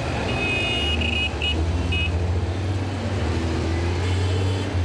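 Street traffic: vehicle engines running with a steady low drone, and a few short high-pitched tones in the first two seconds.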